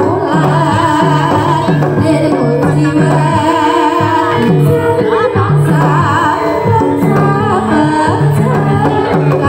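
Javanese gamelan ensemble playing, with female singers' wavering voices over the metallophones and a steady repeating beat.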